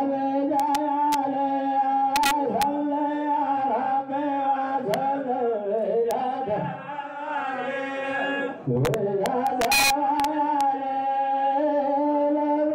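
A group of men chanting in unison on long, held, near-steady notes, with a few sharp clicks over it.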